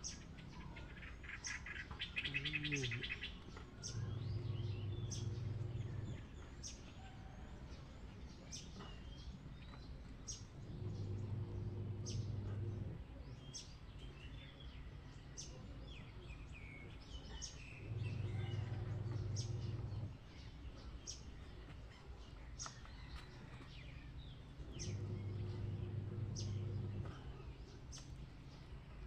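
Outdoor rural ambience with birds chirping and clicking throughout and a brief fast trill about two seconds in. A low, droning pitched call about two seconds long repeats four times, roughly every seven seconds.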